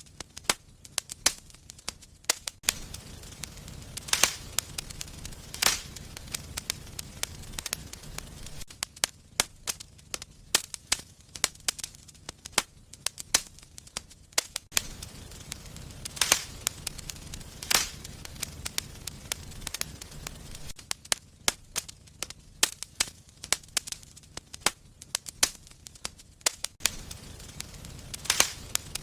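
Wood fire burning in a fireplace, crackling with frequent sharp pops and snaps over a soft low rumble of flames.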